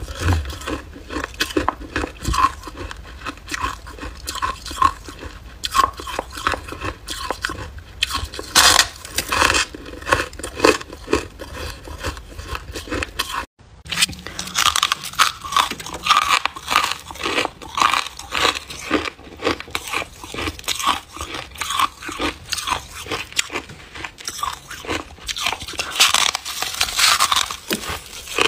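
Freezer frost ice being bitten and chewed close up: a continuous run of crisp, irregular crunches. The sound breaks off for an instant about halfway through, then the crunching carries on.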